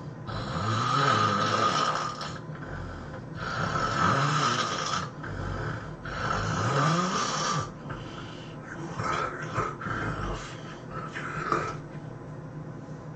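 A person snoring heavily: three long, loud snores about three seconds apart, each with a wavering pitch, then quieter, shorter, irregular snorts.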